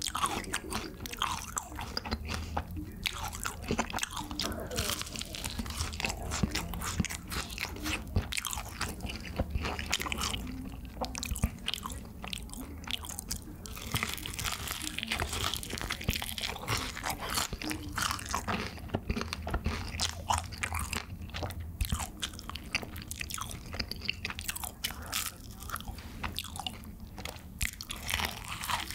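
Bites into crisp bhc Bburinkle fried chicken: the seasoned coating crunches and crackles as it is bitten and chewed, in a close, continuous run of many small crunches.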